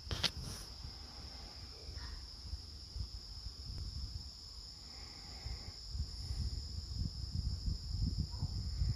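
A steady, high-pitched insect trill that goes on without a break, loud enough to carry to a house. A sharp click comes just after the start, and a low rumble runs underneath on the microphone.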